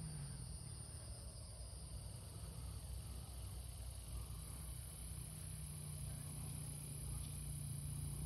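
Steady high-pitched drone of insects trilling, unbroken throughout, over a low rumble.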